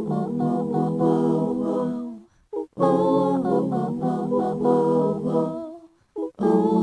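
Wordless a cappella singing: several layered voices humming in harmony, in phrases of about two and a half seconds with brief pauses between them.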